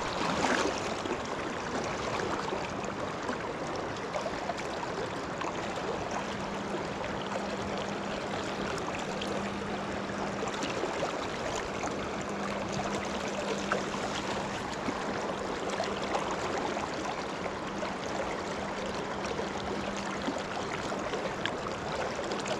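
Swift river current flowing past close by, a steady rush of water, with a faint steady low hum through the middle of it.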